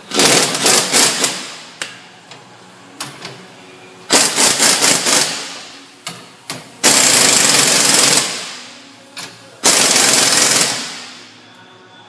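Pneumatic impact wrench hammering in four bursts of one to two seconds, each tailing off, as it drives the threaded rods of a strut spring compressor to compress a front strut's coil spring.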